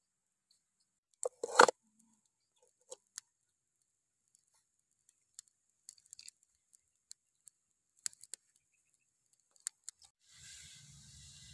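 A pan set down on the stones of a wood fire with a clatter about a second and a half in, followed by scattered small clicks and crackles. Near the end a steady hiss with a low rumble comes in.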